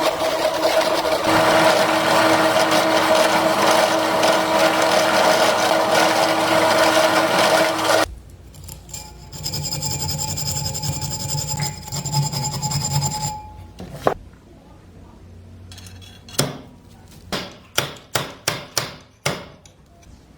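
Power tool running with a steady whine, its abrasive rubbing on a sword blade for about eight seconds, then a quieter machine sound for a few seconds. Near the end comes a quick series of sharp knocks and taps.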